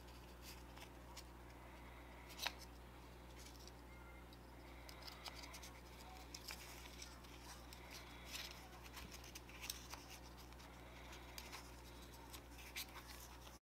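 Faint handling noises of fingers working a small speaker and its balsa box: scattered light clicks and scratches, the sharpest about two and a half seconds in, over a steady low electrical hum.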